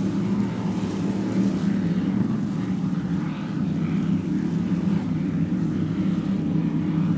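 Powerboat engines running at speed: a steady low drone with no breaks.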